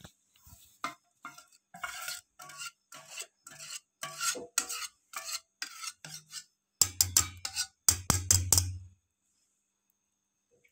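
Batter being scraped out of a steel mixing bowl into a cake pan, with short rubbing scrapes about two to three a second. About seven seconds in come a few louder, heavier scrapes and knocks against the bowl.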